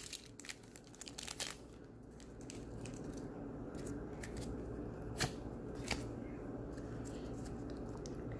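Crinkling and tearing of a Digimon trading-card booster pack wrapper being opened, dense in the first second and a half, then a low hush with two soft clicks.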